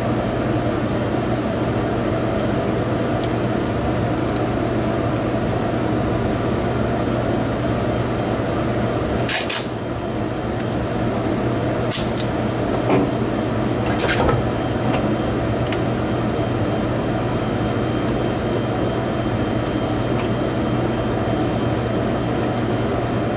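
A steady low machine hum, like a fan or air-conditioning unit running, with a few short rustles and clicks near the middle as refrigeration tubing on a condenser is handled.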